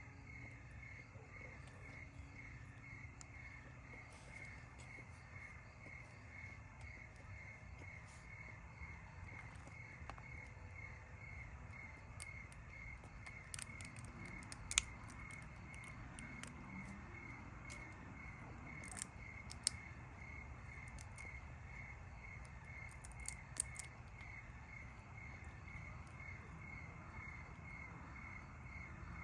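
An insect chirping steadily in an even, high-pitched pulse of about three chirps a second, over a low steady outdoor rumble. A few sharp clicks or taps stand out around the middle.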